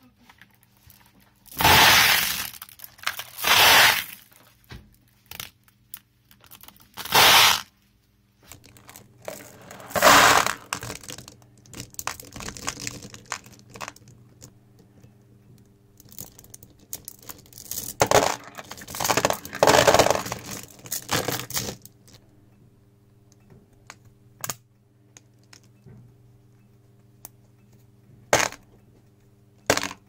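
Small steel balls clattering and clicking against each other and a plastic basket as a clump is pulled off a strong neodymium magnet and spread by hand. The clatter comes in several short loud bursts, then a longer run about two-thirds of the way through, then only scattered single clicks.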